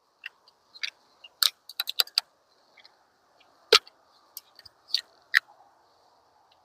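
Scattered light clicks and rattles from handling a drill fitted with a small chainsaw attachment between cuts: a quick run of clicks about two seconds in, a sharper knock near four seconds, and a few more after. A faint steady hiss runs underneath.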